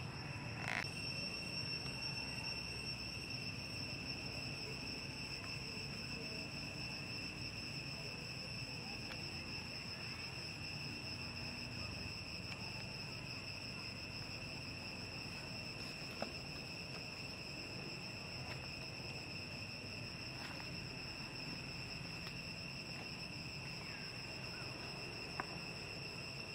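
Steady, high-pitched drone of insects singing in chorus, an unbroken two-tone hum, over a low background rumble, with a few faint clicks.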